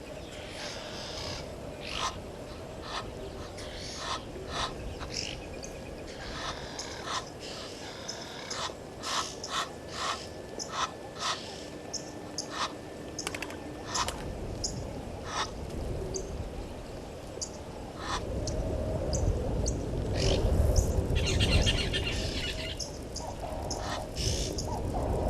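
Wild birds calling around a bush waterhole: many short, sharp chirps and calls, thickest in the first half. About two-thirds of the way in, a low rumble rises and grows louder.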